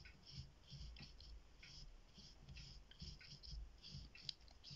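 Watercolour brush stroking across paper: a quick, irregular series of short, soft, scratchy swishes, about two or three a second.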